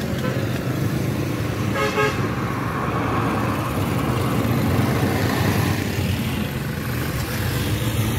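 Road traffic with a steady low engine and tyre rumble, and a vehicle horn tooting briefly about two seconds in.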